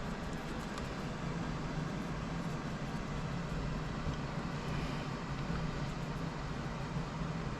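Steady low hum over an even background noise, unchanged throughout.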